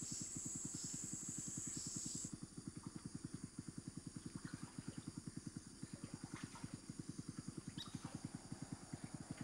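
Wild animal chorus: a low, rapid throbbing call of about seven pulses a second, under a steady high-pitched insect buzz that drops in level about two seconds in, with a few faint chirps.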